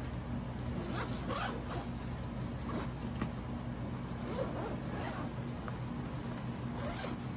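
Zipper on a fabric backpack being pulled open in several short rasping runs, with the bag's fabric rustling as it is handled, over a steady low hum.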